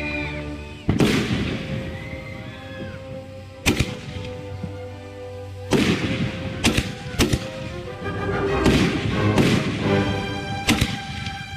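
Consumer aerial firework shells going off: a string of sharp bangs spaced about a second apart, over background music.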